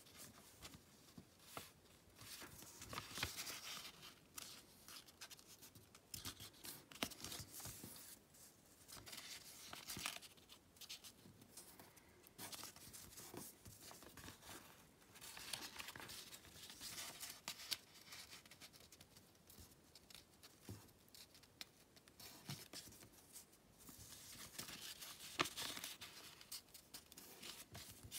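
Sheet of origami paper being handled and folded by hand: faint, irregular rustling and crinkling, broken by short sharp crackles as creases are pressed, with a louder one a little before the end.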